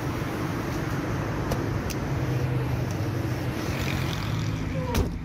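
A car engine idling with a steady low hum, with a couple of light latch clicks, then a Suzuki Mehran's door shutting with a sharp knock near the end.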